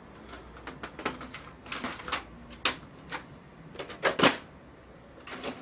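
Hard plastic clicks and knocks as a toner cartridge is pushed home in an HP LaserJet printer and the front cover is swung shut. The loudest is a double knock about four seconds in as the cover closes.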